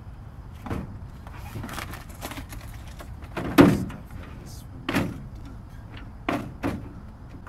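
Irregular knocks and bumps on a jon boat's hull, five or six in a few seconds with the loudest about three and a half seconds in, over a steady low rumble.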